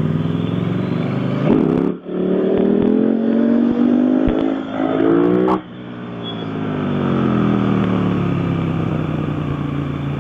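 Motorcycle engine accelerating hard. After a short dip about two seconds in, the pitch climbs, then drops suddenly as the throttle is shut about halfway through. The engine then builds again to a steady run.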